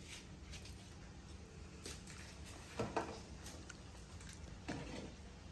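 Fresh lotus seeds being picked from the pods and chewed, giving a few soft crackles and crunches over a quiet room background.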